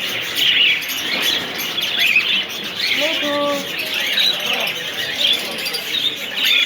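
Many small caged birds chirping at once, a dense, continuous chorus of short high chirps. A single held, lower call stands out briefly about three seconds in.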